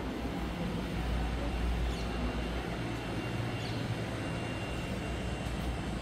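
Steady low rumble of outdoor town ambience, with two faint short high chirps about two and three and a half seconds in.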